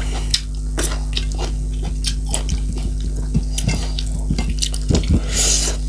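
Close-miked chewing and mouth smacking, a run of small irregular wet clicks, over a steady low electrical hum. A short hiss comes about five and a half seconds in.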